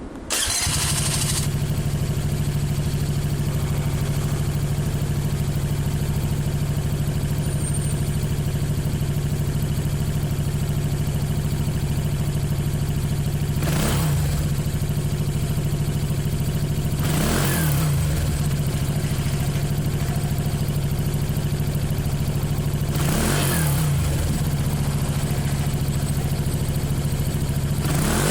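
Gilera Runner ST200 scooter's single-cylinder four-stroke engine breathing through an Akrapovic slip-on silencer, catching near the start and settling into a steady idle. Short throttle blips rise and fall in pitch three times in the second half, with one more at the very end.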